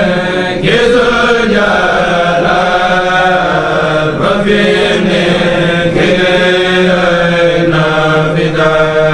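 Men's voices of a Mouride kourel chanting a religious poem without instruments: long, drawn-out melodic lines over a steady low held note.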